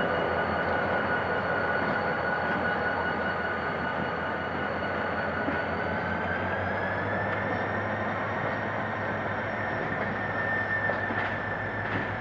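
Passenger coaches rolling slowly past on the rails, a continuous rumble with a steady low hum. Over it a steady high-pitched tone with overtones holds its pitch, then rises slightly about six seconds in.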